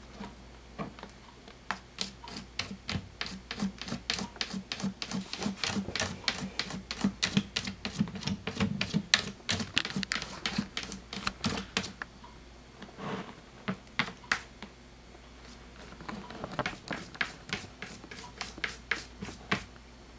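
A cat digging and scratching in pulp paper-pellet litter inside a hooded plastic litter box: quick rattling scratch strokes, several a second, in a long run, then two shorter bursts after brief pauses.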